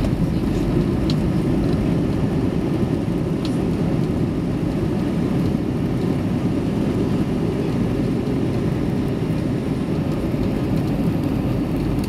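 Steady low rumble inside the cabin of an Airbus A320 airliner: engine and airflow noise at an even level, with no distinct thumps or changes.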